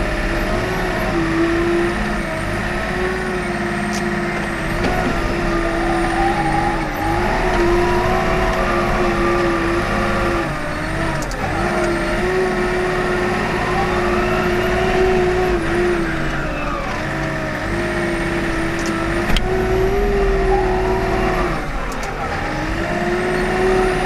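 Komatsu WA40 mini wheel loader's diesel engine running steadily while it works snow. Its note dips briefly every few seconds as the load changes.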